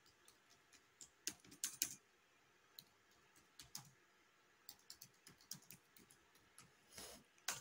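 Faint tapping of computer keyboard keys in short, irregular runs as a word is typed.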